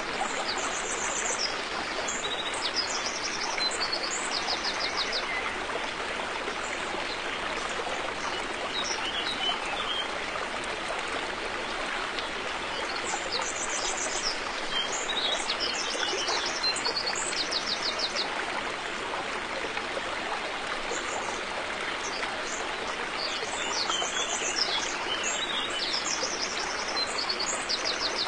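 River water flowing with a steady, even rush. A songbird sings short, rapid trilled phrases over it in bursts near the start, around the middle and near the end.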